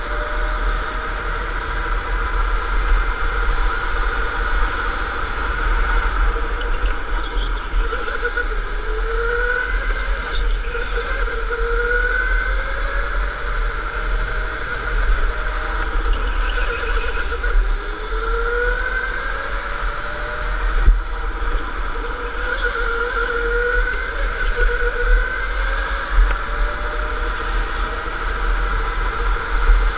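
Electric go-kart motor whining, its pitch rising again and again as the kart accelerates and dropping back between, over a steady low rumble of vibration and wind on an onboard microphone. A single sharp knock about two-thirds of the way through.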